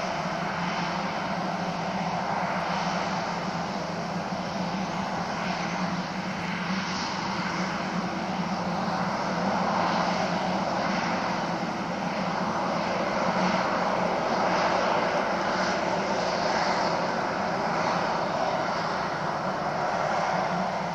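Boeing 737-800 airliner's CFM56 jet engines running, a steady roar with a low hum that swells somewhat louder in the middle and eases off again.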